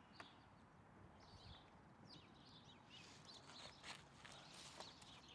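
Near silence: faint ambient background with a few soft clicks and faint high chirps.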